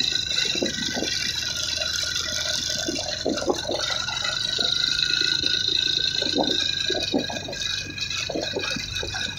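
Wind rushing and buffeting on the microphone of a moving vehicle climbing behind a heavily loaded truck, in uneven gusts. A steady high-pitched whine runs underneath.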